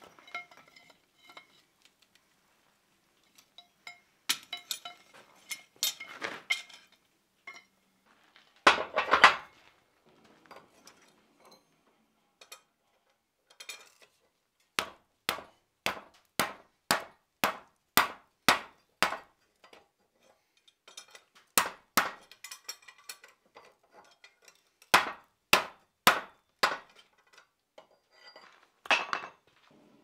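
Rawhide mallet striking a hot, twisted square iron bar bent into a ring over a steel cone mandrel, to round it without flattening the twist: about ten even blows at roughly two a second, then two more short groups of blows. Before that, metal clanks and scrapes as the ring is bent with bending forks and tongs on the anvil.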